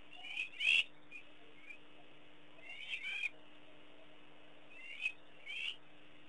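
High-pitched animal calls, heard three times as a pair of short chirping notes about two and a half seconds apart, over a faint steady hum.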